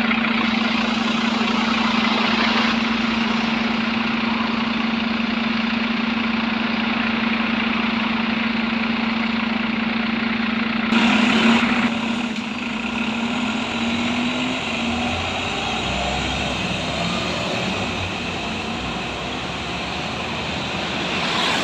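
Articulated Irisbus Iveco Citelis city bus idling at a stop with a steady engine hum. About eleven seconds in there is a short loud rush of noise, then the engine note shifts and fades as the bus pulls away.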